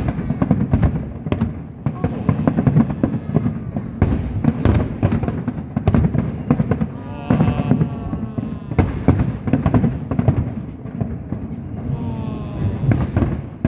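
Aerial fireworks bursting in a continuous barrage, bangs and crackles overlapping without a break.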